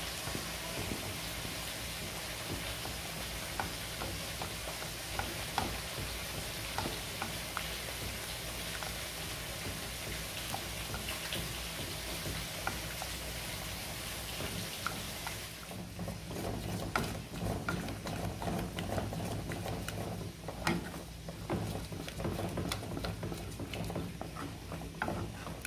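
Spatula stirring a thick cheese sauce in a pot, cheddar cheese spread being melted into a white sauce, with wet scraping and clicking strokes. A steady sizzling hiss lies under the stirring until about fifteen seconds in, then stops, and the stirring grows denser and louder.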